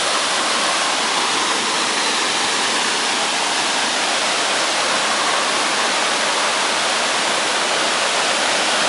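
Waterfall crashing: a steady, loud, even rush of falling water with no change throughout.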